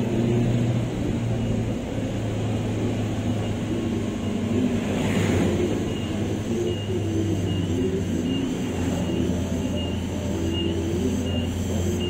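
Steady low rumble of a moving vehicle, with the engine's hum shifting slightly as it runs.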